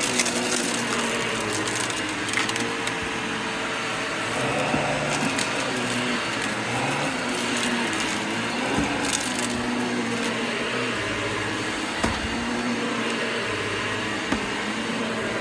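Vacuum cleaner running over carpet and sucking up crunchy debris, with constant crackling and a few sharper cracks as bits rattle up the nozzle over the steady motor hum.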